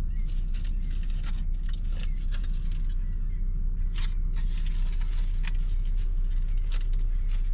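Steady low rumble inside a Toyota's cabin as it idles in a line of cars, with frequent light clicks and rattles over it.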